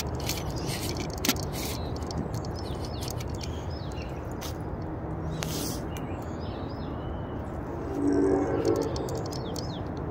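Footsteps crackling through dry leaves and brush, over a steady low rumble, while small birds chirp now and then. A short low hum comes in about eight seconds in.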